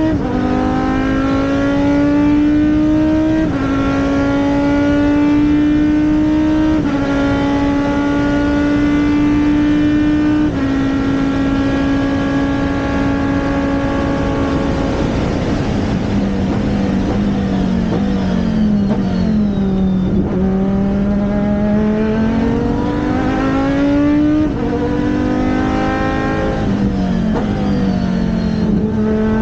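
Race car engine pulling hard through the gears. The pitch climbs, then drops sharply at each upshift, three times in the first ten seconds. About halfway through the engine note falls away as the car slows, then it climbs again and shifts up twice more near the end.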